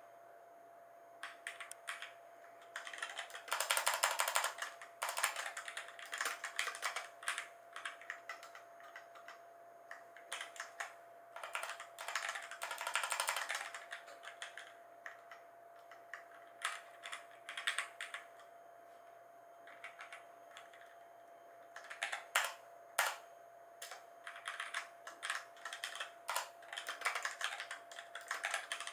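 Typing on a Razer BlackWidow Lite mechanical keyboard with orange switches: irregular runs of key clicks, with dense flurries and short pauses between them.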